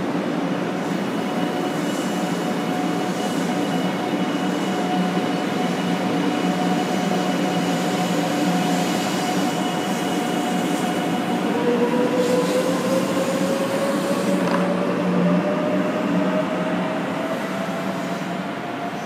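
A 500 series Shinkansen train accelerating out of a station past the platform, with its electric traction drive whining. One whine holds a steady pitch for about the first ten seconds. A little past halfway, a second whine starts and rises steadily in pitch as the train picks up speed, over the running noise of the wheels on the rails.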